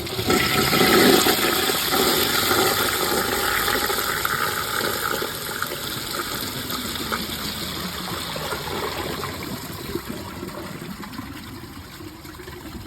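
Vortens Vienna round-bowl toilet on a mid-tank flushing, with the rim jets on one side blocked so the water swirls one way. A rush of water is loudest about a second in and then slowly fades as the bowl drains. It does not siphon at all.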